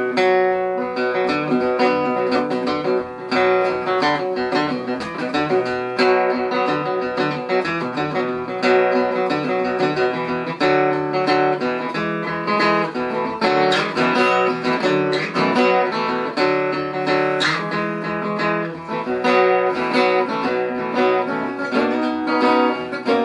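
A 1959 Höfner President archtop guitar played unamplified, a continuous passage of picked chords and single notes.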